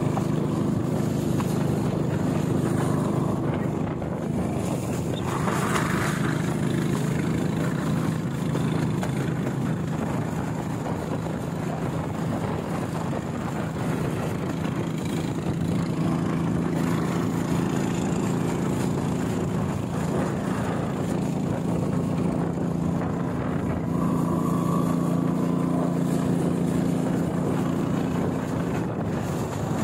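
Motorized bangka's engine running steadily as the wooden boat speeds up the river, with water splashing and rushing along the hull.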